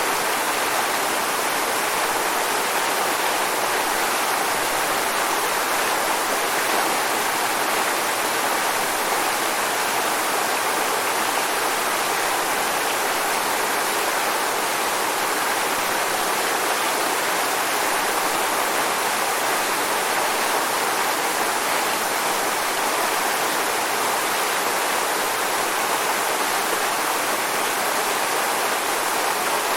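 Waterfall: a steady, dense rush of falling water, even and unbroken.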